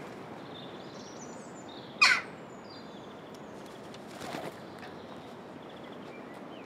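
A jackdaw calls: one loud, short call about two seconds in and a fainter one a couple of seconds later, over faint high chirping from other birds.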